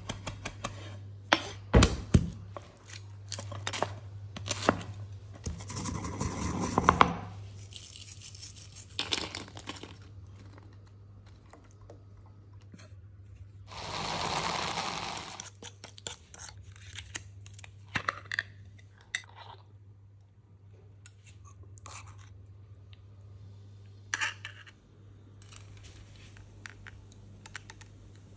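Kitchen preparation sounds: a large knife chopping fresh herbs on a wooden board in sharp knocks, later a food processor running for about a second and a half as it blends the green sauce, then light scattered taps and clicks as the dish is assembled. A steady low hum runs underneath.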